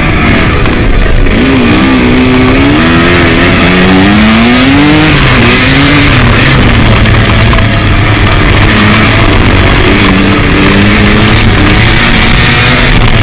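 Kawasaki KX two-stroke dirt bike accelerating away, its engine pitch climbing and dropping with each gear change in the first few seconds, then holding steadier at speed.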